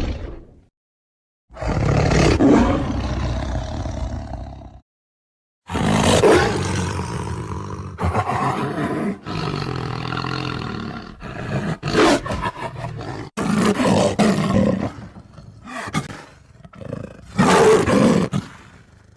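Tiger roaring and growling: a roar trailing off, a pause, a roar of about three seconds, then after a short gap a long run of roars and growls with several sudden loud onsets, fading out near the end.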